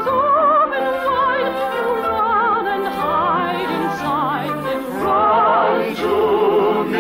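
Orchestral music with operatic singing, the melody lines held with heavy vibrato.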